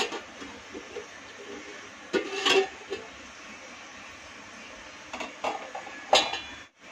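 A steel pot lid being gripped with metal pot tongs and lifted off a steel cooking pot, giving a few clattering metal knocks that ring briefly, the loudest about two seconds in and again near the end, over a steady low hiss.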